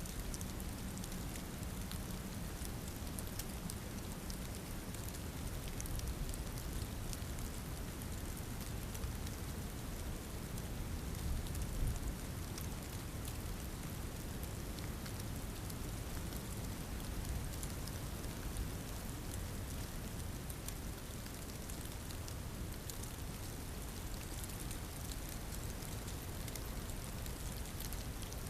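Steady rain falling, with many small drop ticks over a constant low rumble.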